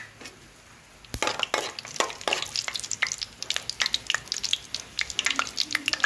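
Whole spices (cloves, cardamom, cinnamon and black peppercorns) frying in hot oil in a kadai. They crackle and pop rapidly from about a second in.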